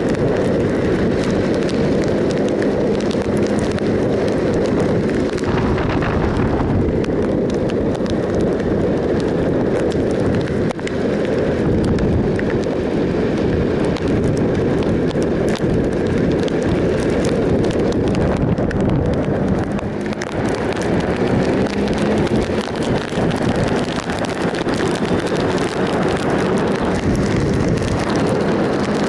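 Wind rushing over the microphone while a 2007 Triumph Sprint ST 1050 motorcycle is ridden at road speed. Its three-cylinder engine runs steadily underneath the wind.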